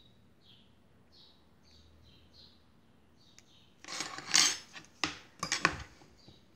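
Faint bird chirps, one short call about every two-thirds of a second, then, about four seconds in, a loud clatter of knocks and rattles from wires and a metal helping-hands clip being handled.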